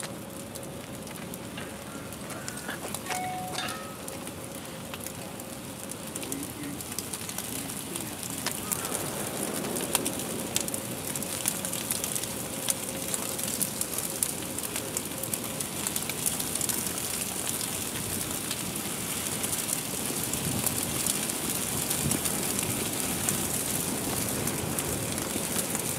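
Open fire burning at the base of two 275-gallon plastic totes: a steady rush with dense crackling and popping that grows louder as the flames build.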